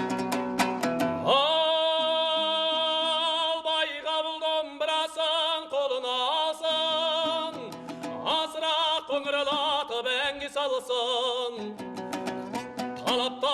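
Kazakh song: a dombra strums alone at first, then a singer comes in and holds long notes with a wavering vibrato over it. The dombra strumming returns near the end.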